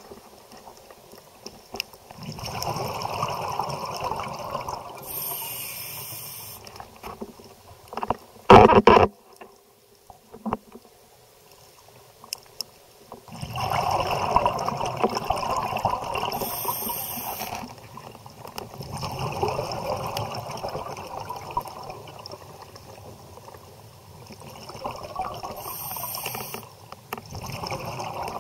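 Scuba diver breathing through a regulator, heard underwater: slow bursts of exhaled bubbles every five or six seconds, each lasting a few seconds, with a short high hiss between some of them. About eight seconds in, a brief loud knock.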